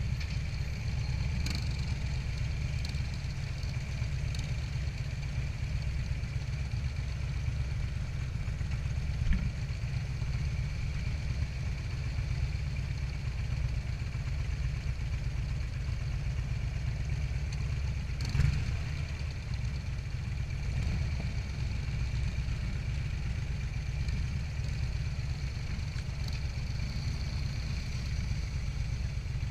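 Motorcycle engine idling and pulling at low speed with a steady low rumble, heard from the rider's own bike. There are two brief knocks, one about nine seconds in and one about eighteen seconds in.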